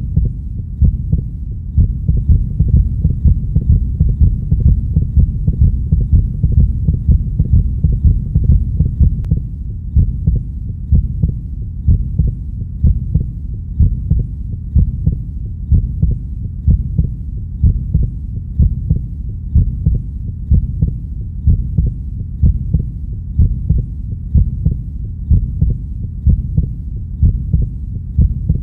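Heartbeat: an even, steady rhythm of low thumps over a continuous low rumble.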